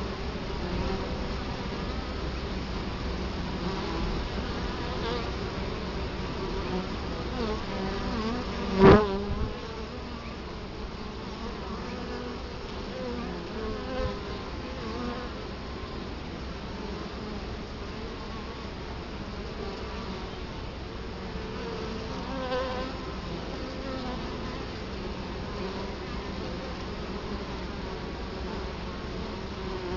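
Italian honey bees buzzing at the hive entrance, a steady hum of many bees. About nine seconds in, one bee flies close past and its buzz swells loudly for a moment, with a couple of fainter close passes later.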